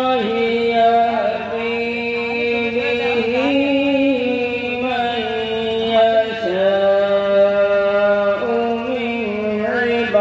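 A man singing a devotional melody into a microphone, holding long drawn-out notes with wavering ornaments and sliding between pitches.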